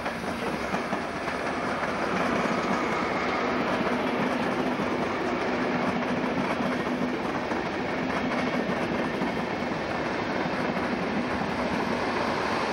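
Push-pull train of silver DB coaches rolling past, pushed by a DB class 218 diesel-hydraulic locomotive. The sound grows louder over the first two seconds, then holds as a steady rumble of wheels on rails with a steady low engine note.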